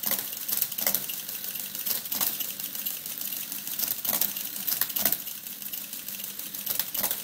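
NISA PK5 electric stepped-drum mechanical calculator running an automatic division. Its motor hums under a steady rapid clatter from the mechanism, with louder knocks every second or so as the carriage jumps to the next position on each underflow.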